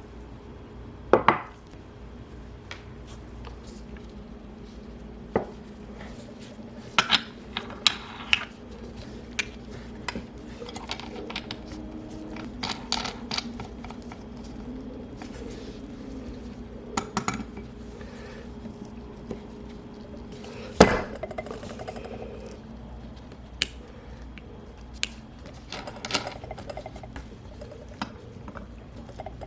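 Small metal watchmaking tools clicking and clinking against the parts of a dive watch: scattered sharp taps and clinks at irregular intervals, the loudest about a second in and about two-thirds of the way through, over a faint steady hum.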